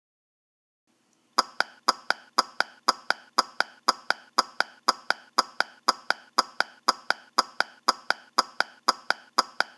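Cartoon footstep sound effect: quick, evenly spaced steps, about four a second, each a short sharp click with a slight ring, beginning just over a second in.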